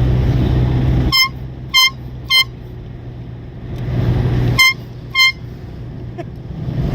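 Cheap handheld canned air horn blown in short, high-pitched toots: three quick blasts about half a second apart, then two more a couple of seconds later. A car's steady low driving hum runs underneath.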